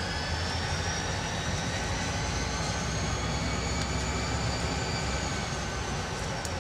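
Diesel locomotives moving slowly, a steady low engine rumble under several high whining tones that rise gently and then ease down near the end.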